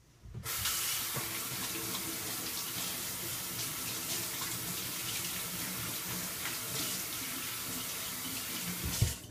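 Water running steadily from a kitchen tap into a sink, shut off abruptly near the end with a short knock.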